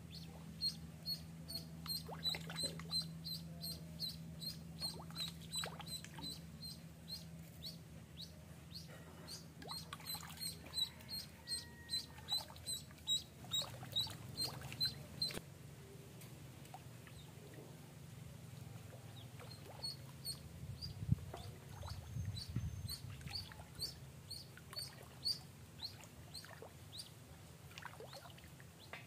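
Live duckling used as snakehead bait peeping over and over, short high cheeps about two a second, with a gap of a few seconds in the middle.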